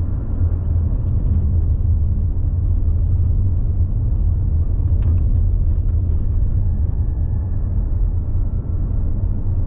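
Steady low rumble of a car's tyres and engine heard from inside the moving car.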